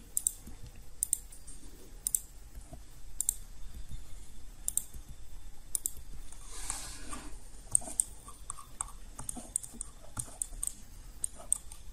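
Computer mouse buttons and keyboard keys clicking during editing of a 3D model: scattered single clicks about a second apart, coming faster in the last few seconds.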